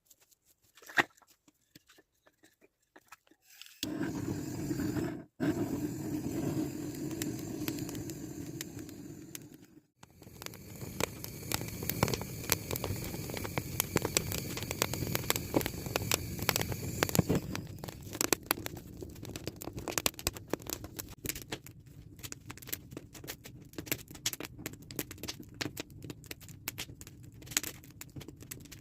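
Embers of a wood fire crackling, with many sharp snaps and pops over a low hiss. The first few seconds are nearly quiet, and the sound cuts out briefly twice, around five and ten seconds in.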